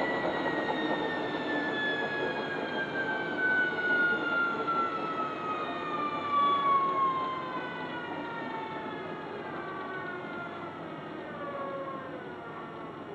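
Bush Big Load washing machine winding down from its final fast spin: the motor's whine falls steadily in pitch over a rushing drum noise as the drum slows, and the sound grows quieter towards the end.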